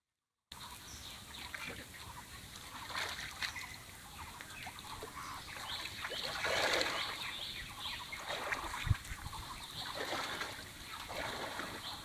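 Water splashing and trickling as a wet cast net is hauled out of a pond by its rope, with an irregular watery hiss that swells around the middle. A single brief knock about nine seconds in.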